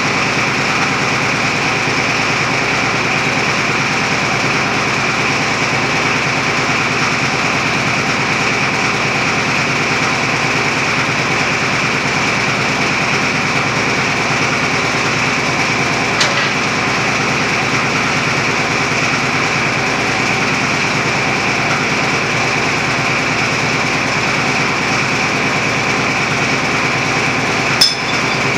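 Hydraulic roof-bolting rig running steadily as it works a bolt into the rock roof of a mine gallery, a loud unbroken mechanical noise. There is a sharp click near the end.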